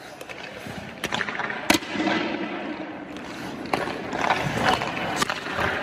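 Sharp knocks of hockey pucks and sticks on an ice rink, the loudest about a second and a half in and several smaller ones later, over the scrape of skate blades on the ice.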